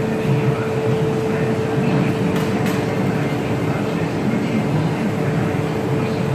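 Steady roar of a glassblowing workshop's large industrial drum fans and glass furnace running, with a constant hum throughout.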